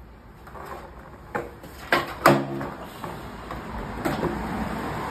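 Skateboard ollie attempts on concrete: the tail snapping down and the board clacking back onto the ground, three sharp knocks in about a second, the last one the loudest.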